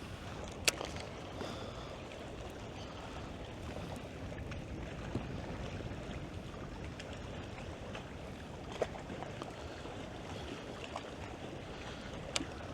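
Steady wind and water noise around a small fishing boat, with wind buffeting the microphone. A few sharp clicks or taps stand out: a loud one about a second in, another about two-thirds of the way through, and one near the end.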